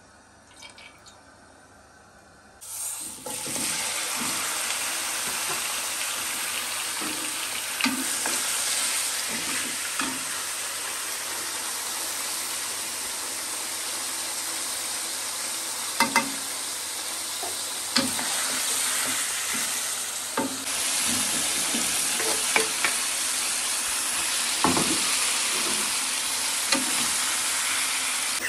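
Chicken pieces frying in hot oil in a non-stick wok: a steady sizzle begins a few seconds in and gets louder about two-thirds of the way through. A wooden spatula stirs the chicken, knocking against the pan now and then.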